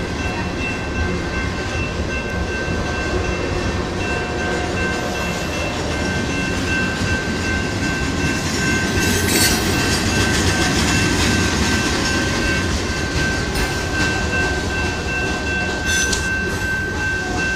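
Train rolling past close by: a steady rumble of wheels on rails with a thin, steady high-pitched whine over it and a few light clacks.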